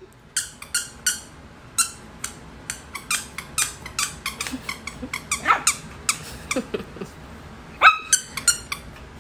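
Puppy yipping in short, sharp high-pitched bursts, a couple a second, with a few longer sliding yelps about halfway through and near the end.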